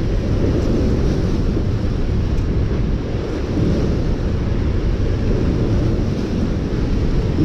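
Steady low rushing noise of river current over rocks, with wind buffeting the microphone.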